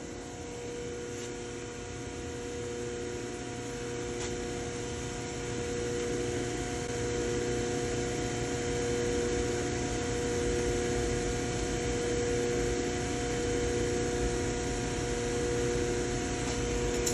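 Steady electrical or machine hum with several unchanging tones over a noise bed, creeping up a little in level over the first several seconds.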